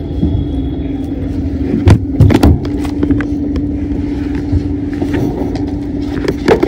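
Motor vehicle engine running at a steady pitch while on the move, with a few loud thumps about two seconds in and again near the end.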